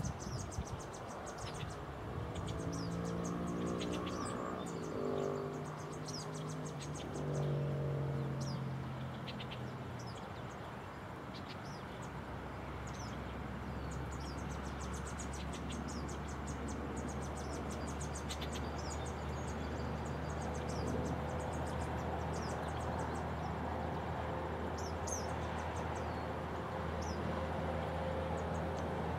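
Outdoor ambience: short, high chirps and trills repeat throughout, over the hum of a distant engine. In the first ten seconds the engine's tones shift in pitch, and after that the hum holds steady and low.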